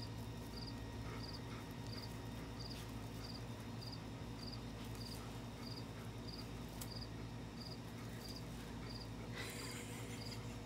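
A cricket chirping at a steady rate, about three short chirps every two seconds, over a low steady hum. A short burst of noise comes near the end.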